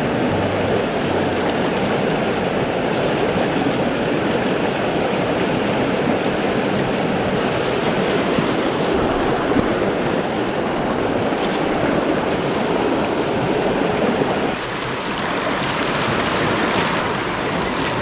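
Mountain stream rushing over rocks, a steady even roar of flowing water that drops a little in level and changes tone about fifteen seconds in.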